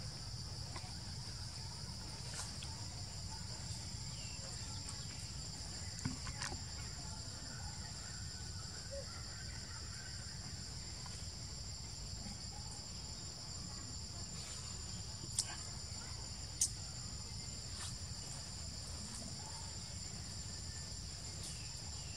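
Steady high-pitched drone of insects in the forest canopy, unbroken throughout, over a low background rumble. A few sharp clicks stand out, two close together about two-thirds of the way through.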